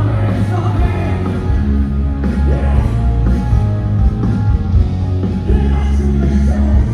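Rock music with a singer over a heavy, steady bass.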